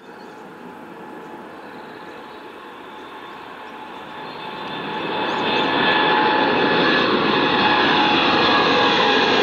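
Boeing 787 twin-engine jet at takeoff thrust, lifting off and climbing. Its engine noise grows much louder about halfway through as it nears, then holds loud, with several steady whining tones over the rushing jet noise.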